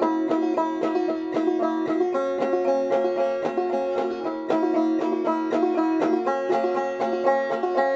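Five-string banjo played clawhammer style in open G tuning dropped a half step, a steady stream of plucked notes and brushed strums ringing on.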